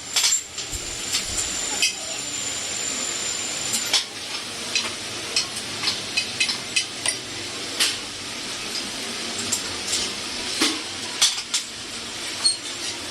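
Irregular metal clinks and taps, with tools and parts being handled, over a steady background hiss.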